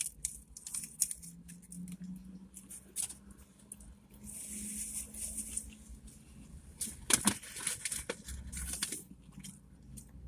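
Close-up eating sounds: chewing and small rustles and clicks as fast-food wrappers and food are handled, with a brief hiss about four seconds in and a louder cluster of clicks about seven seconds in, over a faint low hum.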